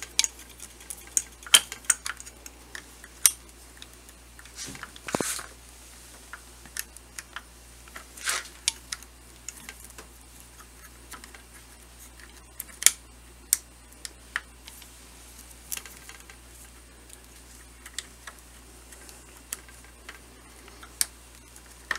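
Irregular small clicks, taps and brief scrapes of metal parts being handled as a spring-loaded primer probe shaft is worked into position on a reloading press.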